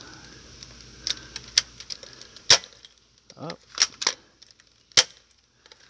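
Hydro Strike Nebula Pro gel bead blaster firing at targets: about half a dozen sharp snaps, unevenly spaced, the loudest about two and a half seconds in. A short vocal sound comes between the shots about three and a half seconds in.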